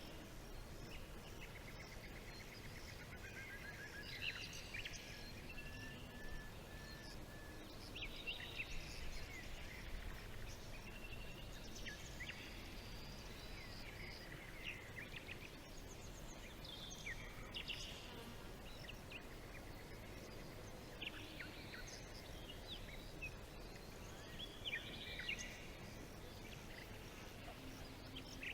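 Several songbirds chirping and singing in a forest, short high calls and quick trills coming in bouts every few seconds over a steady background hiss.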